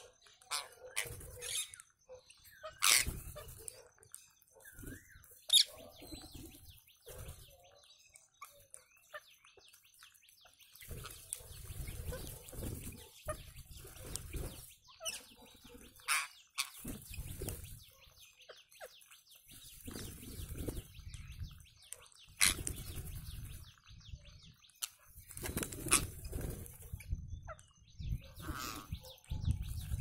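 A flock of rose-ringed parakeets feeding on the ground: scattered chattering calls with a few loud, sharp screeches, and a brief flutter of wings near the end. Low rumbles come and go underneath.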